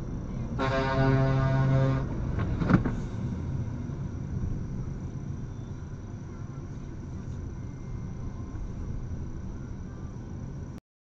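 A car horn sounds once as one steady tone for about a second and a half, over the steady rumble of the car and tyres on the road, heard from inside the car. A sharp click follows about three seconds in, and the road noise cuts off suddenly near the end.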